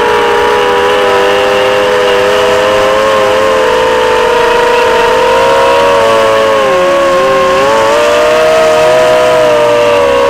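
Electric motors and propellers of an FPV drone heard from its onboard camera: a loud, steady whine of several close tones that shift together with throttle, dipping about seven seconds in and then rising.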